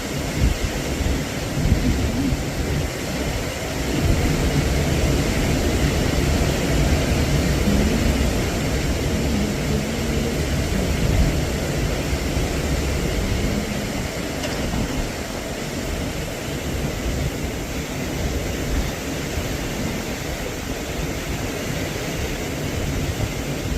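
Strong, gusty storm wind buffeting the microphone: a continuous loud rumble and rush that swells and eases.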